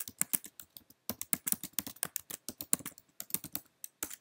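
Typing on a laptop keyboard: a quick, irregular run of key clicks as an email address is typed out, with a brief pause about a second in.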